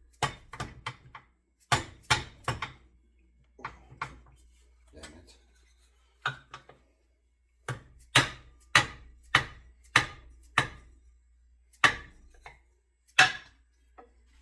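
Sharp wooden knocks as an axe head is driven and seated onto a wooden handle. There are about a dozen hard strikes with lighter taps between, including a steady run of about one every half second near the middle.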